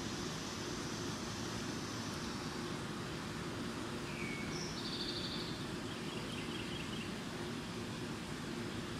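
Steady outdoor background noise with a faint low hum, and a few brief bird calls about four to five seconds in.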